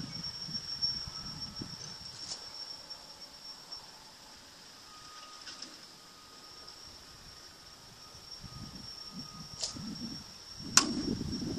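A slowpitch softball bat cracks sharply against a softball near the end, a second or so after a fainter click as the pop-toss machine launches the ball. A steady high whine and wind rumble run underneath.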